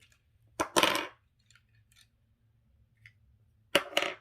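Plastic Lego pieces clattering: a click and then a short rattle about half a second in, a few faint ticks, and another sharp clatter near the end.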